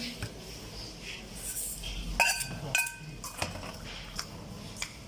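A spoon clinking against a bowl while ingredients are added to a marinade: two sharp strikes a little over two seconds in, each ringing briefly, followed by a few lighter taps.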